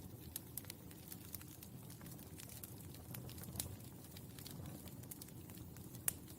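Burning charcoal crackling: irregular small sharp pops over a low, steady rumble, with a louder snap near the end.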